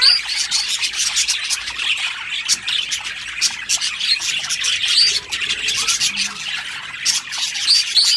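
Several small birds chirping and calling at once, rapid overlapping chirps with short rising notes throughout.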